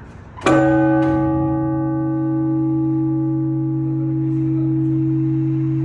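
Orthodox church bell struck once, about half a second in, at the start of the ringing that calls people to the service. Its higher ringing fades over a few seconds while a deep hum holds on.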